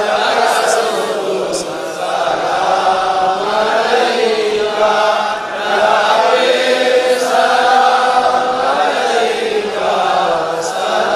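An imam's chanted Arabic Quran recitation for the Eid prayer, carried over loudspeakers: one voice in long, melodic, held phrases of a few seconds each with short breaks between them.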